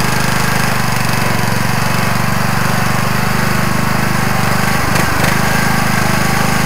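Riding lawn mower's single-cylinder Briggs & Stratton engine running steadily under load as the mower crawls through mud, with a brief dip about five seconds in.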